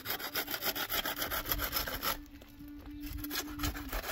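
Quick, rhythmic scraping strokes that stop for about a second midway, then resume.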